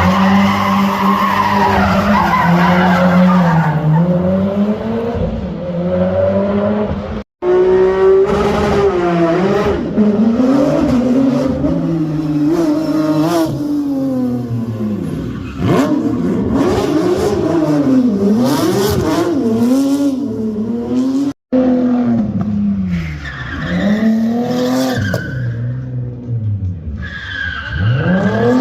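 Race car engine revving up and down over and over while its tyres squeal and skid, as in a drift or burnout display. The sound breaks off for an instant twice.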